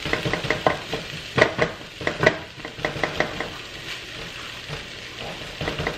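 Wooden spatula stirring and scraping rice around a nonstick pan, a quick run of scrapes and taps against the pan, busiest in the first three seconds, over a steady sizzle of butter and garlic frying with the rice.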